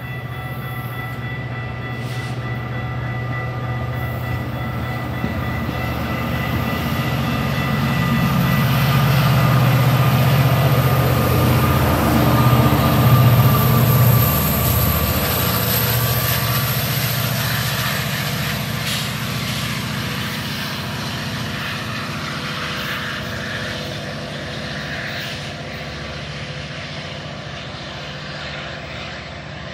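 Metra push-pull commuter train passing a station platform: the bilevel coaches roll by with a steady rumble and whine, then the diesel locomotive passes, its engine loudest about halfway through before the sound slowly fades.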